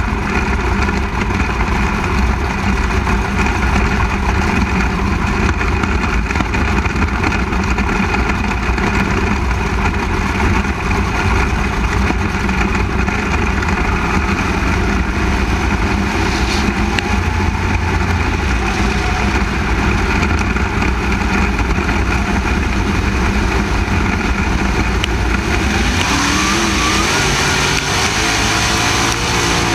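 Onboard sound of a 360 sprint car's V8 engine running hard at racing speed, with other sprint cars' engines close by. Near the end the engine pitch sweeps up several times in quick succession.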